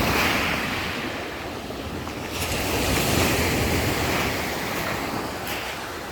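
Black Sea waves breaking and washing up the shore, swelling loudest at the start and again about halfway through, with wind buffeting the microphone.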